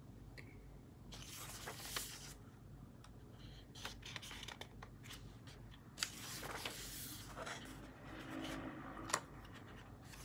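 Thin, flimsy pages of a paperback colouring book being turned by hand: three rustling page turns, each with a sharp crackle of paper.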